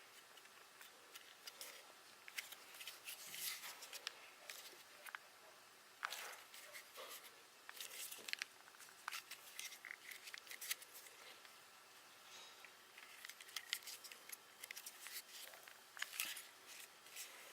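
Hands handling a polymer pistol and pressing and rubbing freshly heated textured grip tape onto its frame: scattered soft clicks, rubs and scrapes.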